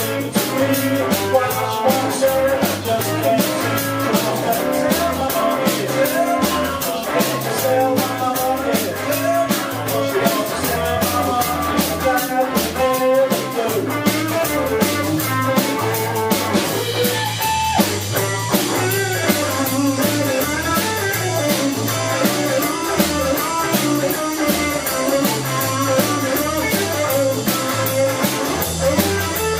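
Live blues band playing, with electric guitar and drum kit; the cymbals come in louder a little past halfway.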